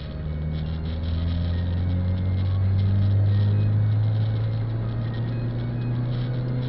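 Car engine heard from inside the cabin, pulling as the car gathers speed; its low hum rises a little in pitch and grows louder over the first few seconds, then holds steady.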